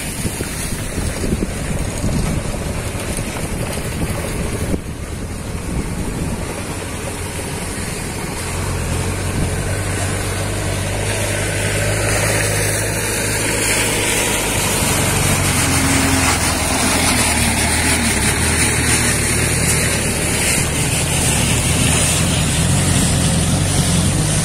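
A motor vehicle engine running steadily. Its low hum comes in about eight seconds in and grows louder, over a steady rushing noise.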